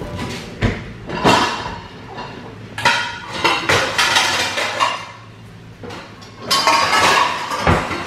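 Dishes and cutlery clinking and clattering as they are taken out of a dishwasher: a string of knocks, each with a short ring, busiest about three to four seconds in and again near the end.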